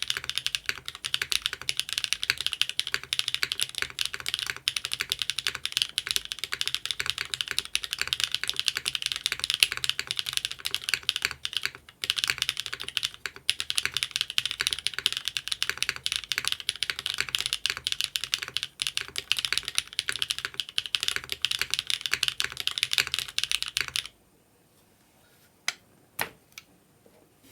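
Fast typing on a Mode SixtyFive mechanical keyboard with linear Cherry MX Black-housing switches on Kailh Burgundy stems, a polypropylene plate and GMK keycaps: a dense, unbroken stream of keystrokes with two short breaks about twelve and thirteen seconds in. The typing stops about 24 seconds in, leaving only a few single key presses.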